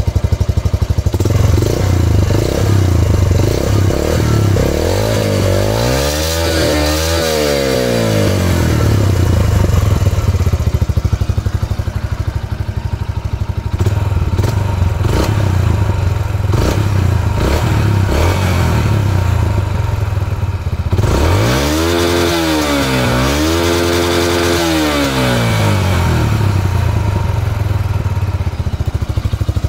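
Yamaha YB125Z DX's 125 cc single-cylinder four-stroke engine idling, revved up and back once about six seconds in and twice in quick succession around twenty-two seconds in.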